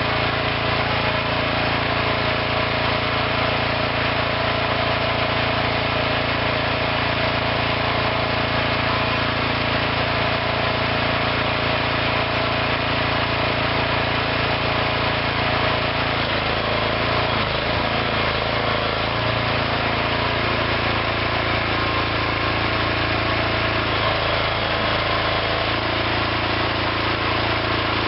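Small engine of a DIY hydraulic backhoe running steadily, its note wavering and dipping briefly about two-thirds of the way through and again near the end.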